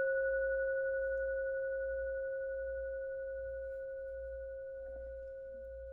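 A struck chime ringing on at one steady pitch and slowly fading away, with a faint low hum underneath.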